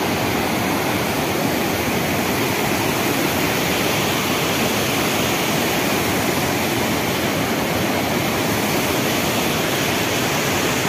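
River rapids: fast water rushing and churning over rocks, a loud, steady rush with no breaks.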